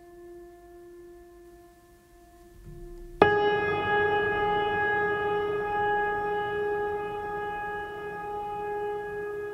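Ambient background music: soft held tones, then about three seconds in a loud chord comes in sharply and rings on, slowly fading.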